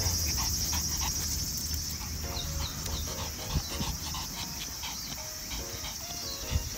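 A Pomeranian panting in quick, rhythmic breaths, with insects shrilling steadily in the background.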